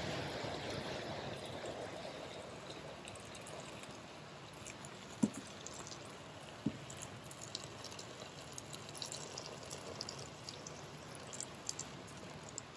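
Boiling water poured in a steady stream into the inner pot of an electric pressure cooker, splashing over bamboo-leaf-wrapped rice dumplings as the pot fills. Two light knocks sound about five and seven seconds in.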